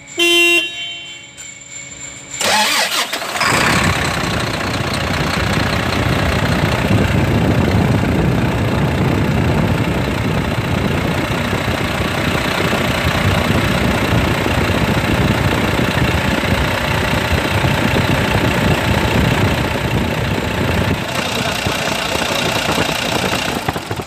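A short pitched beep, then the Volvo D11 inline-six diesel is cranked about two seconds later and catches within a second, settling into steady idle. It now starts and runs freely because the jammed idler pulley, which had been fitted backwards and made the engine crank without starting, is now mounted correctly.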